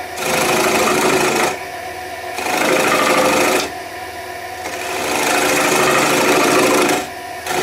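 Turning tool cutting into the face of a pine blank spinning on a wood lathe, hollowing a small recess: three cuts, each one to two seconds long, with the lathe running on more quietly between them.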